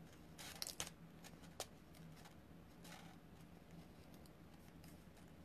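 Near silence with a low steady hum and a few faint ticks and rustles of fingers picking at the liner on a small piece of adhesive tape.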